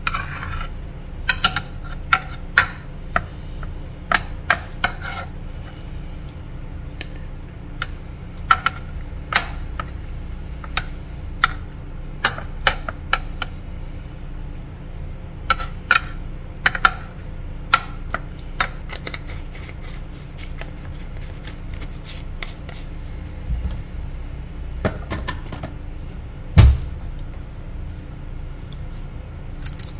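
Spoon tapping and scraping against a metal baking pan while spreading a mashed topping: irregular clicks and knocks, with one heavier thump near the end, over a steady low hum.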